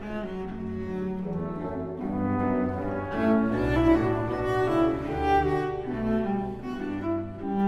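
Instrumental background music of slow, held notes, led by low bowed strings.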